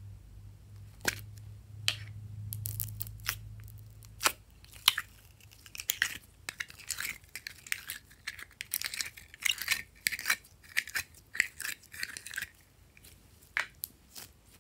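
Hands opening a plastic slime container, with a few sharp clicks, then stretching and squishing glossy pink slime: a dense run of sticky crackles and pops from about six seconds in, dying down to a few pops near the end.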